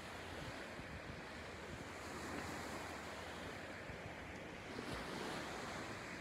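Small waves lapping on a beach, with wind rumbling on the microphone.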